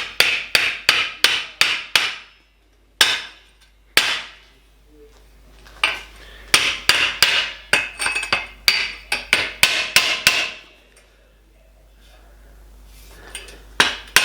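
Hammer blows on aluminium channel, bending its mitred flange over to a 45-degree angle: sharp metallic strikes in quick runs of about three a second, broken by pauses and a couple of single blows.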